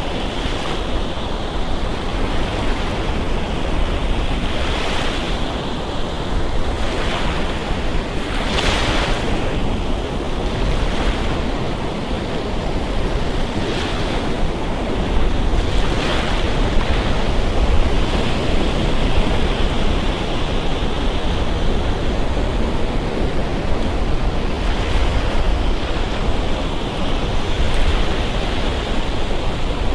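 Surf breaking and washing up on a sandy beach in a steady wash, with a few louder, hissing breakers, the strongest about nine seconds in. Wind buffets the microphone throughout with a low rumble.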